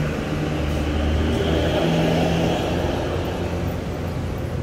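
Steady mechanical running noise with a low hum, swelling louder for a couple of seconds about a second in.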